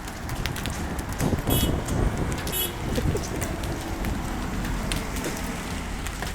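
Hailstones striking hard surfaces as many irregular sharp clicks and taps, over a steady rush of wind and rain. Two brief high-pitched tones sound about a second apart in the first third.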